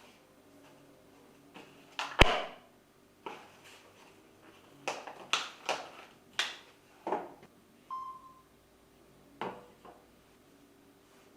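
Packaging and a small device being handled: a string of sharp clicks and knocks, the loudest about two seconds in, with a short single beep about eight seconds in.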